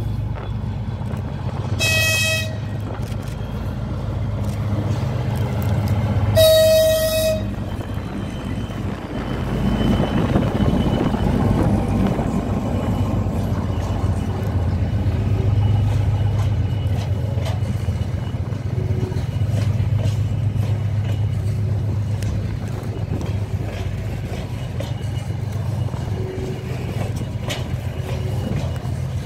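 2TE10M diesel locomotive sounding its horn twice, a short blast about two seconds in and a longer one about six seconds in. It then passes with its two-stroke opposed-piston 10D100 diesel engines working, loudest as it goes by, and is followed by the steady rumble of loaded freight hopper wagons rolling over the rails.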